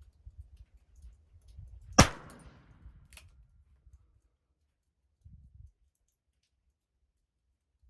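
A single shot from a Ruger Super Wrangler .22 revolver firing subsonic .22 LR ammunition: one sharp crack with a short echoing tail. A fainter sharp click follows about a second later.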